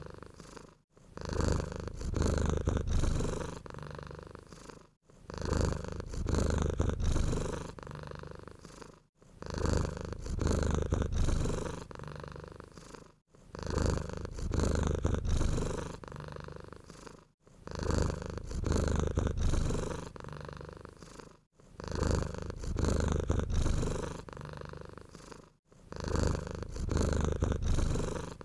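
Domestic cat purring close up, in an even cycle that repeats about every four seconds: a louder stretch, then a softer one, then a brief gap before the next.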